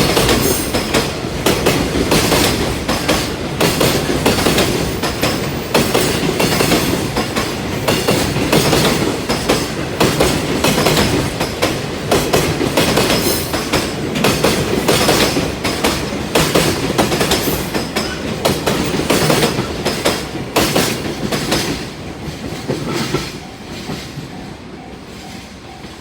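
Wagons of a freight train hauled by an EF210 electric locomotive rolling past at a level crossing, the wheels clicking in a steady rhythm over the rail joints. Near the end the clatter fades as the train moves off, and a repeating level-crossing warning bell comes through.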